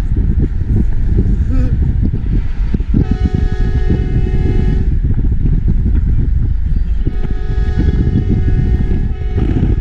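Aftermarket train horn mounted on a car, blasted twice for about two seconds each, a few seconds apart, over the steady rumble of the moving car.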